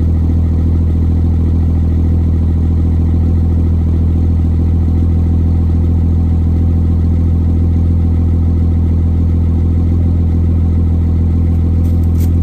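Cummins 5.9 24-valve inline-six turbodiesel with 150 hp injectors, running steadily at idle just after a cold start at 32° without grid heater or block heater.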